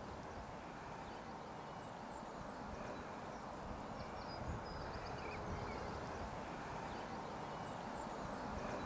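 Wind blowing and rumbling on the microphone, a steady noise, with a few faint high chirps now and then.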